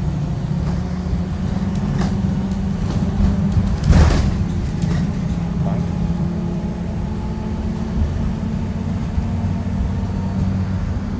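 Interior drone of a moving 2018 Blue Bird Vision school bus: steady low engine hum and road noise as it drives along. A brief loud burst of noise about four seconds in.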